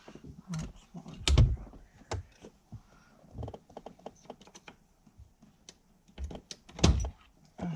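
Irregular clicks and light knocks of tools and steering-column parts being handled during reassembly, with two louder knocks, one about a second and a half in and one near the end.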